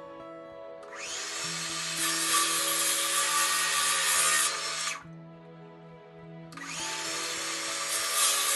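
Electric power tool cutting small wooden corner blocks, run in two bursts of about four seconds each that start and stop abruptly.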